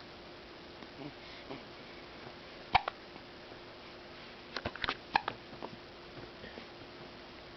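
Hiccups: one sharp hiccup just under three seconds in, then a quick run of several more around the five-second mark.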